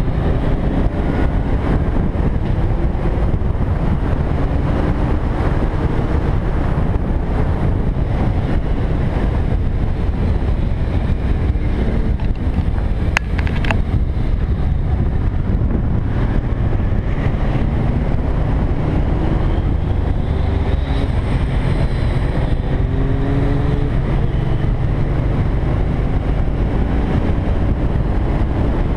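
Motorcycle riding at speed: heavy wind rumble on the microphone over the engine, whose note climbs in several short rising sweeps. A single sharp click about 13 seconds in.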